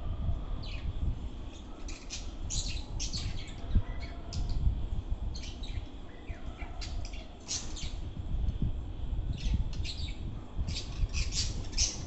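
Caged budgerigars chirping and squawking in short, scattered calls, several in quick clusters, over a steady low background rumble.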